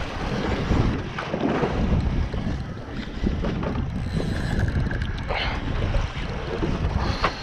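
Wind buffeting the microphone out on open water, a steady rumbling noise, with a couple of brief knocks near the end.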